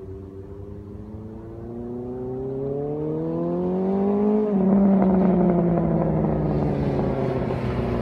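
Honda CB550 café racer's inline-four engine through an aftermarket Moto GP Werks exhaust, accelerating hard. The engine note rises steadily, drops sharply at an upshift about halfway through, then holds loud as the bike comes nearer.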